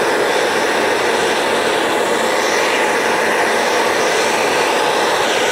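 Acetylene torch with a number 4 tip burning steadily, its flame giving a constant rushing hiss as it melts scrap sterling silver and casting grains in a crucible.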